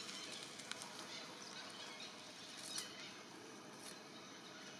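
Faint, even outdoor forest background with a few brief, sharp high-pitched sounds; the loudest comes near three seconds in.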